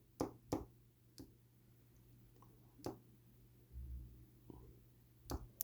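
A few faint, scattered clicks and taps from handling a scratch-off lottery ticket, with a soft low thump about four seconds in.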